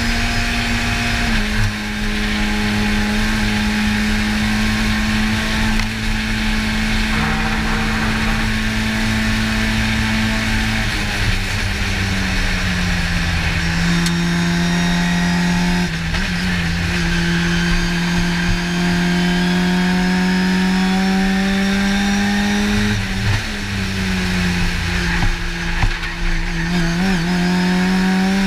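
Race car engine heard from inside the cockpit, running at steady high revs in fifth gear over road and wind noise. The note drops lower about eleven seconds in, and near the end it dips and rises a few times as the car changes down to third.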